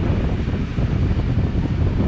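Train hauled by steam locomotive 3801 running along with a steady, loud rumble, and wind buffeting the microphone.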